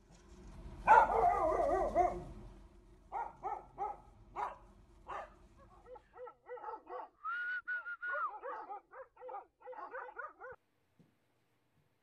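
Dogs barking: a loud drawn-out bark about a second in, then single barks about every half second, then a quicker run of barks with a high whine in the middle, stopping shortly before the end.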